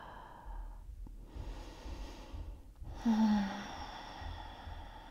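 A woman breathing slowly and audibly: a long breath in, then a sigh out with a bit of voice about three seconds in.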